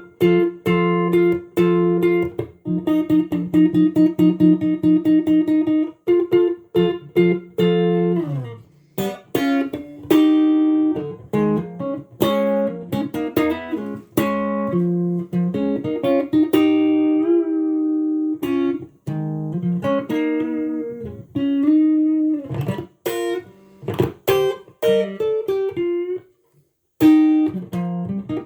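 Made-in-Japan Tomson Spirit Sounds Stratocaster-style electric guitar being played solo. For the first several seconds it picks fast repeated notes, then slides down in pitch about eight seconds in. After that it plays a melodic lead line with string bends.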